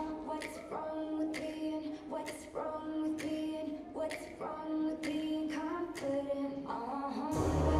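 Pop dance track in a stripped-down section: a female voice singing over sparse, sharp percussive hits with no bass. The bass and full beat come back in near the end.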